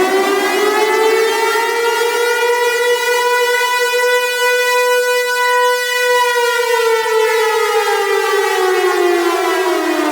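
Tornado warning siren wailing: its pitch climbs, holds high through the middle, then slowly winds down near the end.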